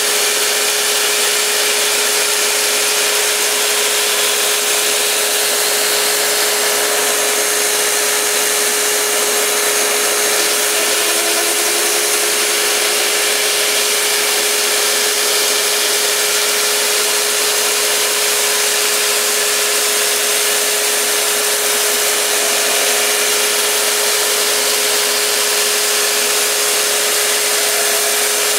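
Belt grinder running steadily, a knife's edge being ground on its slack belt: a constant abrasive hiss over a steady motor hum. The edge is being worked down toward a zero edge until a wire edge (burr) rolls over.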